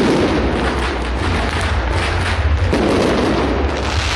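Aerial fireworks exploding: a shell bursts with a boom right at the start and another about three seconds in, over dense crackling from the bursting stars.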